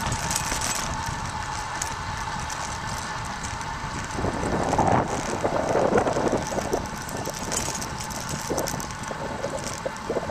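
Wind rushing over a camcorder microphone while riding a bicycle, with steady rolling noise; heavier, uneven gusts from about four seconds in.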